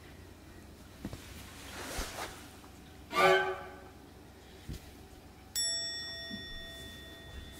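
A kitten under a kotatsu gives one short, loud meow among faint rustles and light knocks. About two seconds later a bell-like chime starts suddenly and slowly fades.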